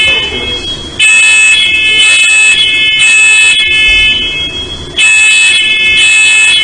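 Smoke/fire alarm sounding in the temporal-three pattern: loud, high-pitched beeps in groups of three, about one a second, with a short pause between groups. It was set off by cooking smoke from breakfast.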